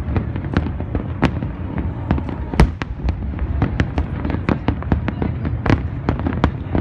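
Fireworks display: a rapid barrage of shell bursts and crackles, several bangs a second over a continuous low rumble, with the loudest bang about two and a half seconds in.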